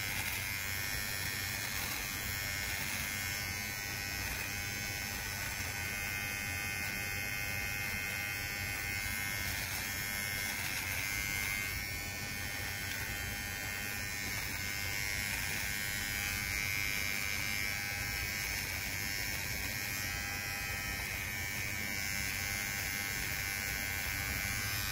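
Kemei cordless electric hair trimmer running with a steady buzz as its blade is worked over chin stubble.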